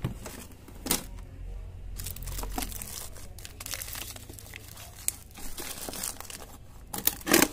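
A fridge drawer is pulled open, then plastic food bags crinkle and rustle as a hand rummages through them, with a louder crinkle near the end.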